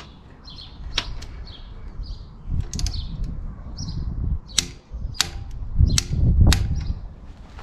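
Torque wrench working on a motorcycle's crash-bar mounting bolts: sharp metal clicks, some single and spread apart, with a quick cluster about three seconds in. The bolts are being torqued to 50 newton metres.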